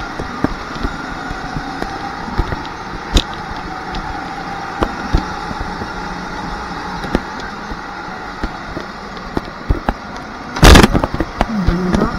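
Onboard sound of a rental go-kart running at speed: a steady drone with frequent short rattles and knocks. About ten and a half seconds in comes a sudden loud bang of an impact on the kart, followed by a brief change in the drone's pitch.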